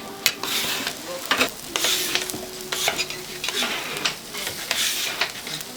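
Food sizzling in a hot pan while it is stirred, with the scrape and irregular clicks of a utensil against the metal.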